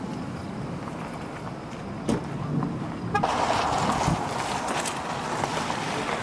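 Wind rushing over the microphone, a steady noise with a short tick about two seconds in; about three seconds in it changes abruptly and turns louder and brighter.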